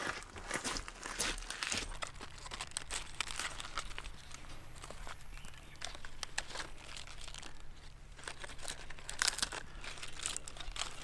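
Leafy garden greens, bok choy and mustard, rustling and snapping as they are picked by hand: a run of irregular crisp crackles and small tearing sounds.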